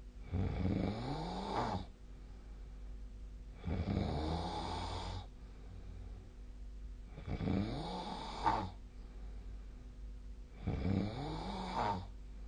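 A sleeping person snoring: four snores, each about a second and a half long, coming roughly every three and a half seconds.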